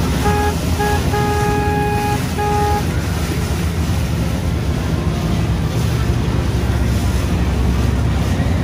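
Motorboat running under way through choppy water, with water rushing and wind buffeting the microphone. In the first three seconds a horn sounds four toots: two short, one long, then a short one.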